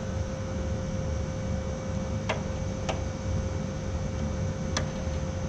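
Steady hum of neighbouring air-conditioner condensing units running, with three sharp clicks about two, three and five seconds in.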